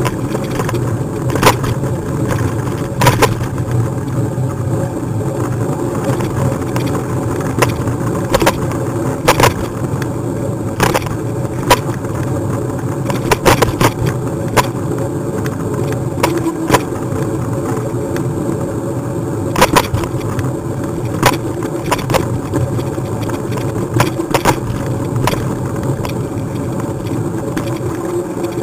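Riding noise heard from a bike-mounted camera: a steady low rolling hum, broken every second or two by sharp clicks and knocks as the mount rattles over bumps in the road.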